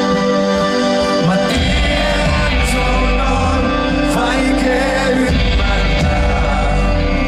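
Live pop-rock band playing: held chords ring, then about a second and a half in the bass and drums come in under a man singing.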